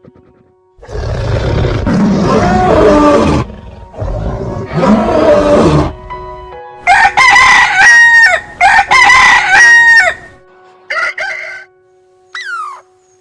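Two loud, rough animal calls, then a rooster crowing twice, each crow a loud call in several stepped pieces. Near the end come a few short falling chirps.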